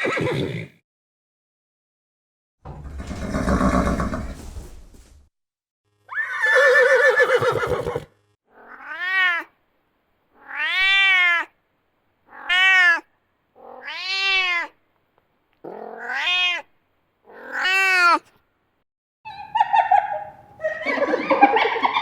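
A domestic cat meowing six times in a row, each call rising then falling in pitch, about one every one and a half seconds. Before the meows come two other animal calls, a low rough one and a higher one, and another rough call follows near the end.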